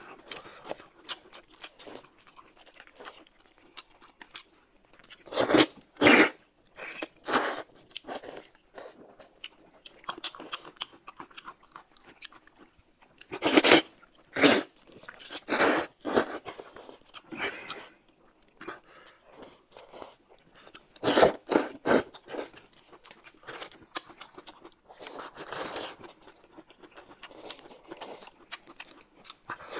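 Two people slurping wide flat mianpi noodles and chewing with open mouths, with soft wet mouth clicks throughout. Loud slurps come in short clusters about six seconds in, around the middle, and again about two-thirds of the way through.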